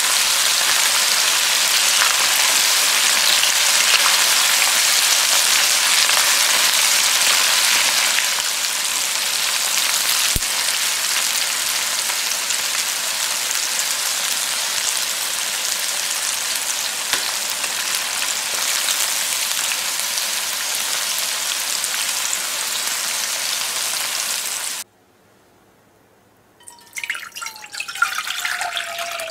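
Karaage chicken pieces deep-frying in hot oil: a loud, steady sizzle that eases a little after about eight seconds. Near the end it cuts off, and water runs into a stainless pot.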